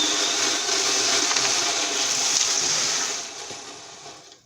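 A small engine-driven power tool running steadily, its pitch wavering slightly. About three seconds in it is shut off and winds down, fading away over a second or so.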